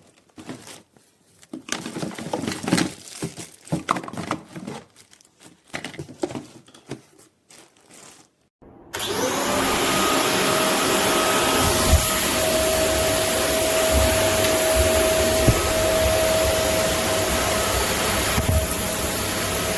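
Clicks and knocks of plastic parts being handled, then about nine seconds in the Vexilar C6 corded vacuum cleaner's 600 W motor switches on, its whine rising quickly and then running at a steady high pitch.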